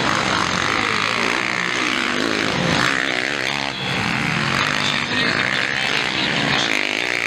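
Motocross bike engines racing, several bikes at once, revving up and down in pitch as the riders accelerate and shift gears.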